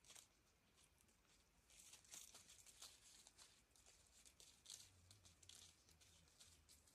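Near silence in a forest: faint, irregular crackling and ticking sounds.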